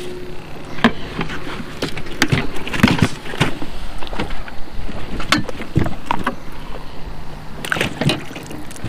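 Irregular knocks, clunks and rattles in a metal fishing boat as gear is handled and moved about, a dozen or so sharp hits over several seconds.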